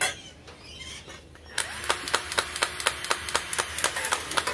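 Handheld cordless power tool starts about a second and a half in and runs steadily for about three seconds. It gives a constant hum with regular sharp ticks about six times a second, then stops near the end.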